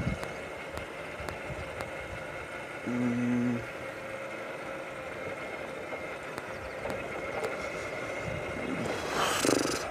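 Hero Passion Pro single-cylinder motorcycle running along the road, recorded by the rider, with steady wind and road noise. A brief low steady tone sounds about three seconds in, and a short rush of noise comes near the end.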